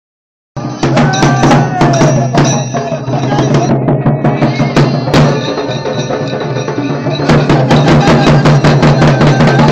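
Loud music driven by rapid, heavy drum beats over a steady low drone, starting about half a second in.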